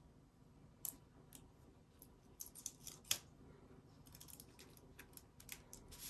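Tape being peeled off a freshly pressed, hot metal sublimation bookmark and its transfer paper: faint, irregular sharp crackles and ticks, thickest around three seconds in and again in the second half.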